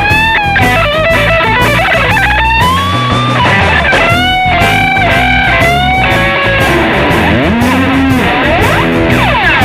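Electric guitar through a BOSS DD-8 digital delay, played as sound effects: bent and sliding notes, then rising-and-falling pitch swoops that repeat over one another in the delay's echoes.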